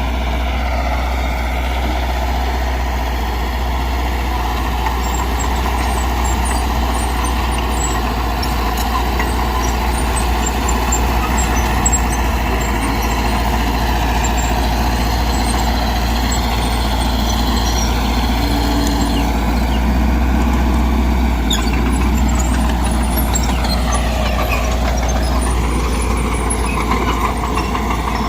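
Diesel engine of a Mitsubishi BD2G bulldozer running steadily under work, with the engine pitch shifting in the last few seconds.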